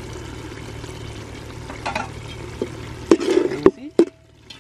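Mutton keema sizzling in a large metal pot while a perforated metal ladle stirs it. About three seconds in come a few loud scrapes and knocks of the ladle against the pot, then the sizzle drops quieter, with sharp taps of the ladle.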